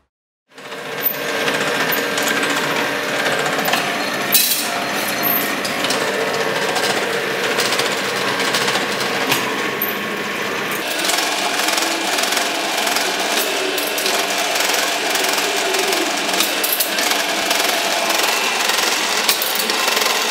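Plate rolling machine bending a steel strip into a ring: a steady mechanical clatter of turning rolls and rattling metal, with frequent small clicks and knocks. It starts about half a second in.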